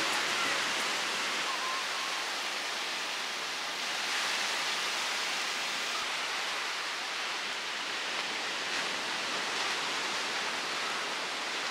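Ocean surf breaking and washing up the beach, a steady rushing noise that swells a little about four seconds in.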